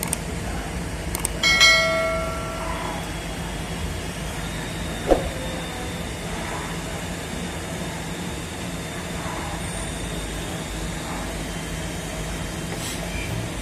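Metal-on-metal work on an air compressor's finned cylinder barrel as it is slid down over a piston with new rings: one ringing clang about one and a half seconds in and a sharp knock around five seconds, over a steady low hum.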